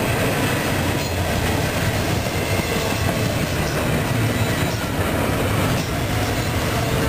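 Double-stack intermodal freight train rolling past, its well cars' wheels running steadily on the rails with a low rumble.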